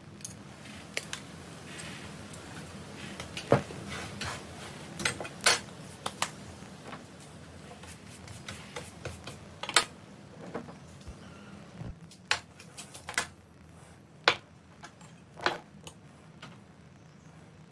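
Irregular sharp clicks and metal clinks: red-handled cutters snipping pieces of the old handle off a cleaver's tang, and the tools and cleaver being set down on a wooden workbench.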